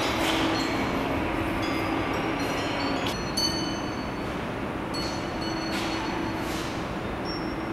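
Glass rods of a reactive sound installation ringing with scattered high, chime-like tones that start and stop, over a steady rumbling noise and a low hum.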